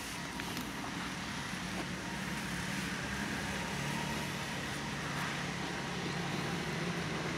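A motor engine running with a steady low drone over outdoor background hiss, growing a little louder about a second in.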